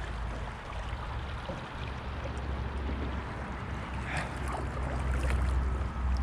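Wind rumbling on the microphone over a steady wash of river water around a kayak.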